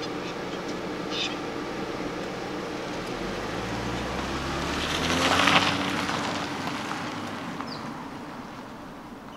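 A station wagon driving off down a dirt road: engine and tyre noise swell about five seconds in, then fade steadily as the car pulls away.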